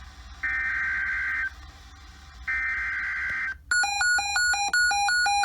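Emergency Alert System SAME header: two one-second bursts of screeching digital data tones about a second apart. About 3.7 seconds in, an alert tone takes over, beeping rapidly and alternating between a high and a low pitch about two and a half times a second. A low hum runs underneath.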